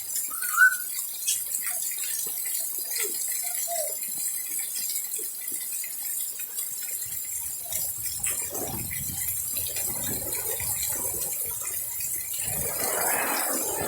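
Steady rain hiss, with water splashing and sloshing through the second half as a child plays in it. A few short high cries break in near the start, in the middle and near the end.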